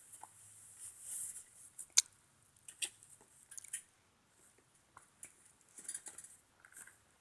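Faint rustling of packaging and scattered light clicks and taps as bike parts are handled, with a sharp click about two seconds in.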